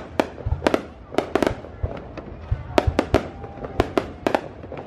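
Fireworks display: aerial shells bursting in quick, irregular succession, sharp cracks several times a second over deep booms.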